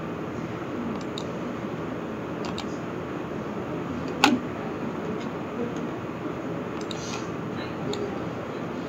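Steady microphone hiss with a few faint clicks and one sharper, louder click about four seconds in, from a computer mouse and keyboard being worked.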